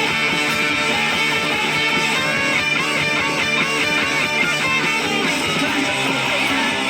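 Punk rock played on electric guitar through a Roland Micro Cube amp and BOSS ME-25 effects unit, loud and steady throughout.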